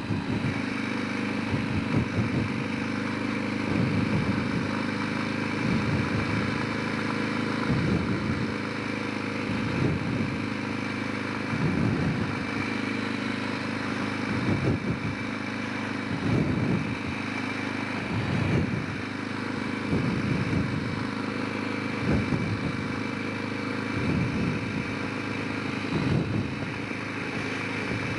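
Honda Rincon 650 quad's single-cylinder engine running steadily while the quad drives along a forest track, with a dull low thump roughly every two seconds.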